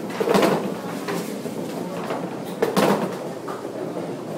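Candlepin bowling alley clatter: two sharp crashes of balls and pins, about half a second in and again near three seconds, over a steady din from the lanes.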